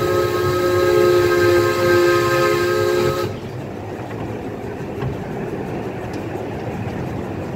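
Miniature steam locomotive's whistle blowing a steady chord of several notes, cutting off about three seconds in. After that only the train rolling along the track is heard.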